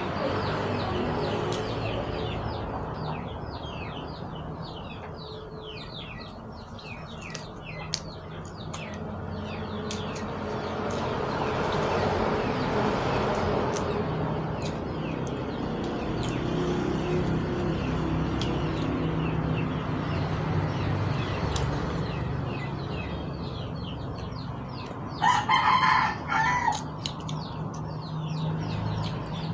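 A rooster crows once near the end, a loud call of about a second and a half. Before it, quick high chirping runs in the background.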